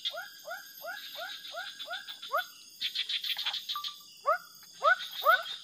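A frog calling repeatedly in short rising chirps, about three a second, pausing for a couple of seconds midway before starting again, over a high insect buzz.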